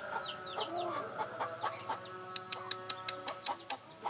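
Chicks peeping over and over in short high falling chirps, with a hen clucking. About halfway through comes a quick run of about eight sharp knocks, louder than the birds, with a steady ringing tone behind them.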